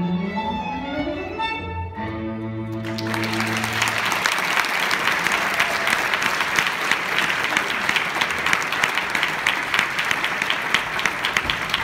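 Music with held string notes ends about three seconds in. An audience then applauds, a dense steady clapping.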